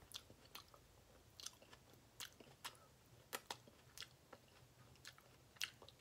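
Faint mouth sounds of eating baked spaghetti squash by hand: irregular soft clicks and smacks of chewing and licking the fingers.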